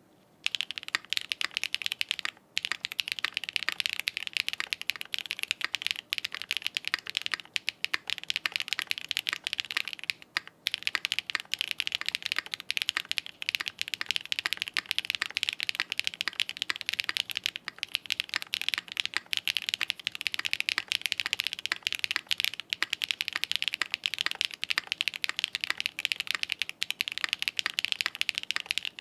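Fast, continuous typing on a custom mechanical keyboard with a half FR4 plate, SWK F3 switches lubed with Krytox 205g0, and doubleshot ABS keycaps, with no foam or dampening inside. It is a dense run of sharp clacks, with short pauses about two and a half and ten and a half seconds in.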